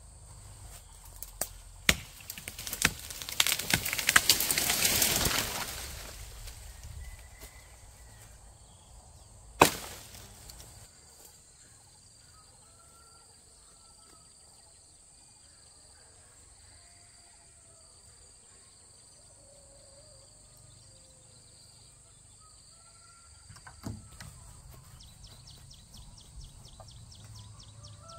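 A few sharp knocks and a spell of loud rustling in the first six seconds, one sharp knock about ten seconds in, then quiet outdoor ambience with birds chirping and a faint, steady insect trill.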